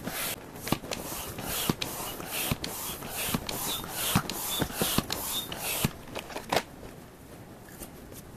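Hand air pump worked in quick, even strokes, about two a second, each stroke a hiss with a sharp click; the pumping stops about six seconds in.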